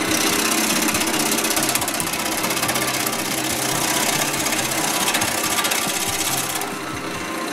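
A wood lathe spinning a dry mountain ash (rowan) blank while a large spindle gouge cuts into it: a loud, steady rasping hiss of shavings peeling off, with a fast fine chatter and the low hum of the lathe under it. The cut lightens near the end.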